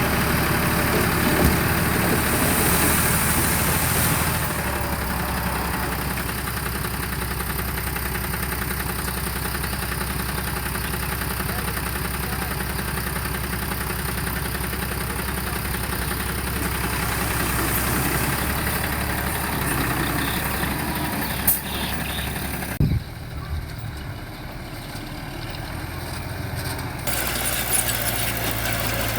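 Heavy diesel engine running steadily at low revs, with a couple of sharp knocks about three quarters of the way through, then a quieter stretch before the engine sound returns.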